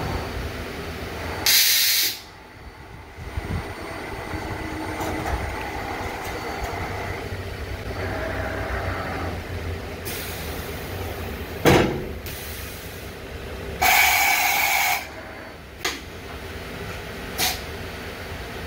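Yang SMV-1000 CNC vertical machining center running: a steady machine hum, broken by several short blasts of compressed-air hiss and a few sharp clunks.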